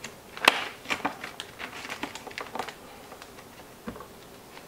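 Plastic vacuum-sealer bag crinkling and rustling as hands fit it into a FoodSaver vacuum sealer, with a string of small clicks and taps, and a soft knock near the end as the sealer's lid is pressed down.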